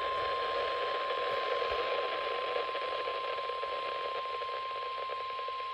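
NOAA Weather Radio warning alarm tone: a single steady 1050 Hz tone over a hiss of radio static, the signal that a warning broadcast, here a tornado warning, follows.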